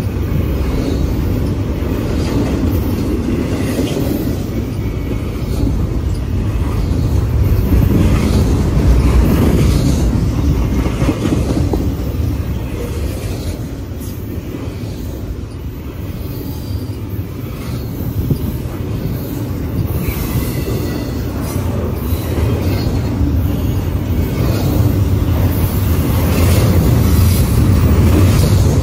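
Double-stack intermodal freight train of container-laden well cars rolling past: a loud, steady wheel rumble with repeated clicks as wheels cross rail joints, and a light wheel squeal about two-thirds of the way through.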